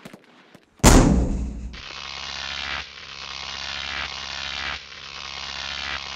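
A single loud gunshot bang about a second in. It is followed by a fast, steady mechanical rattling buzz that comes in three swells, each building and then breaking off.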